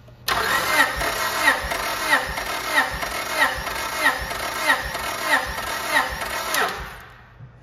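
Starter motor cranking a 1994 Acura Integra's four-cylinder engine with its spark plugs out, for a compression test. The whine pulses evenly about every two-thirds of a second for about seven seconds, then winds down near the end.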